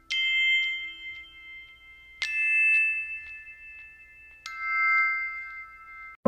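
Background music: three struck chime-like notes about two seconds apart, each ringing on until the next.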